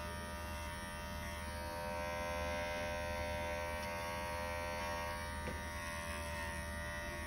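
Electric pet hair trimmer running steadily with a buzzing hum as its blade trims the fur around a Yorkshire terrier's eye.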